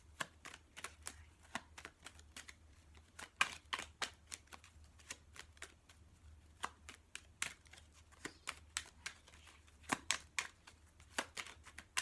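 A deck of affirmation cards being shuffled by hand: irregular quick flicks and taps of the cards, with a low steady hum underneath.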